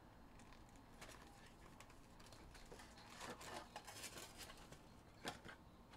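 Faint rustling and scattered clicks of a cardboard trading-card hobby box being opened and its foil-wrapped packs slid out, with one sharper click a little past five seconds in.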